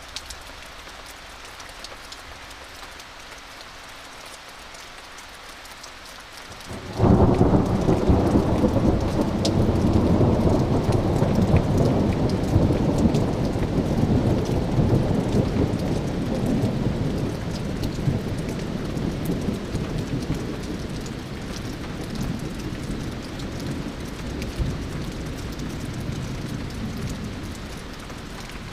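Steady rain falling, then about seven seconds in a sudden loud clap of thunder that rolls on as a long rumble, slowly dying away over some twenty seconds.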